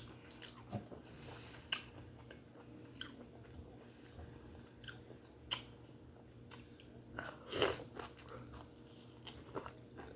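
Close-miked chewing of steamed conch meat: faint wet smacks and clicks of the mouth, with one louder smack about three-quarters of the way through.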